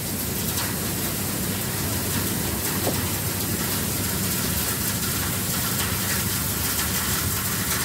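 A heavy truck's engine running steadily at idle, heard from inside the cab, under a steady rushing hiss.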